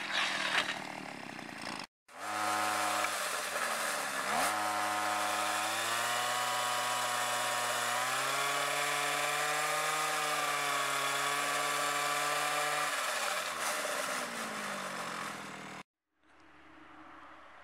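Small two-stroke string-trimmer engine driving a homemade scooter's rear wheel by chain. It revs up about two seconds in, holds high revs with some wavering in pitch, then drops back toward idle near the end. A brief cut breaks the sound at the start and again near the end.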